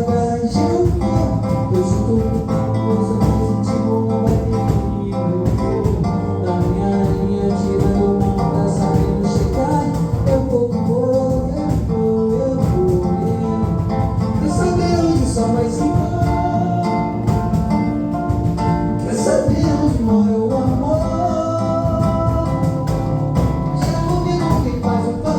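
A sung song with guitar accompaniment: a voice carrying the melody over steady strummed and plucked strings.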